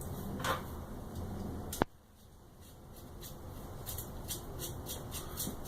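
Soft handling of small steel nuts and washers on an M10 threaded rod, with one sharp click a little under two seconds in and faint light clicks later.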